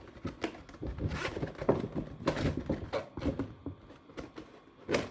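Plastic panels of a flat-pack folding shoe rack being handled and pressed together: an irregular string of light clicks, taps and knocks.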